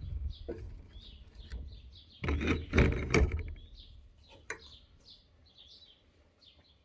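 Small birds chirping over and over, with a cluster of sharp knocks and clicks from a couple of seconds in, the loudest sound here, and a few single clicks around it.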